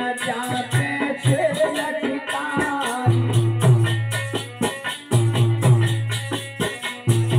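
Alha folk music without words: a harmonium melody over a fast, even beat of drum and jingling percussion, with steady low notes coming in about three seconds in.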